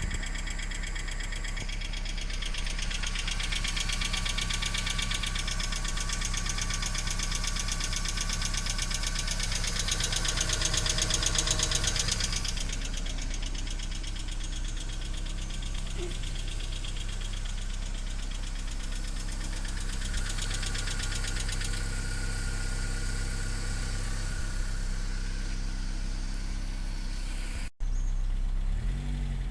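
BMW E46 318i four-cylinder engine idling cold with a fast metallic rattle from the valvetrain, strongest for the first dozen seconds and then much fainter. The rattle comes from worn hydraulic lifters, which cured it when replaced.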